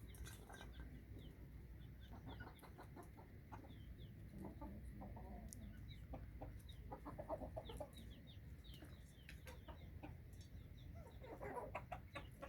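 Aseel chickens clucking softly on and off, with short high chick peeps scattered throughout; a louder burst of clucking comes near the end.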